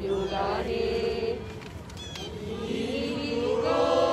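Group of protesters chanting a slogan together in long held voices. The chant fades out about a second in and builds again about halfway through.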